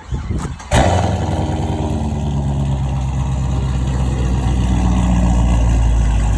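Car engine cranking briefly, then catching with a sudden loud burst under a second in and settling into a steady, low idle.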